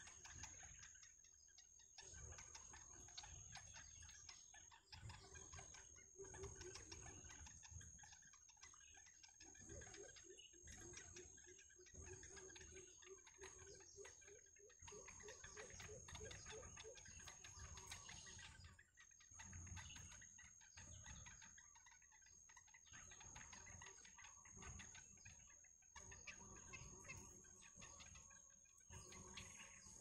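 Faint reed-bed ambience: a steady high-pitched insect drone, soft bird chirps, and a quick run of low repeated notes about ten to sixteen seconds in.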